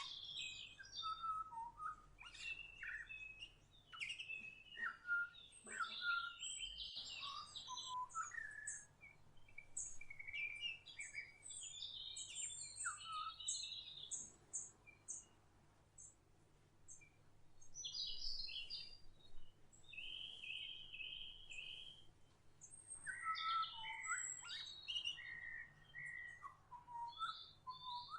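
Several songbirds chirping and singing in short, varied, overlapping phrases, with a brief lull about halfway through.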